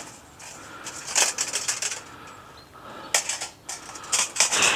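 Hard objects being handled in a stone fire ring, clinking and rattling in three short bursts: about a second in, just past three seconds, and near the end.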